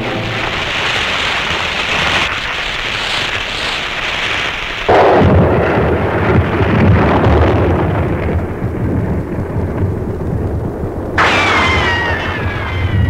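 Film soundtrack noise: a loud rushing, rumbling hiss that jumps louder about five seconds in. Near the end, several high tones slide downward together over it.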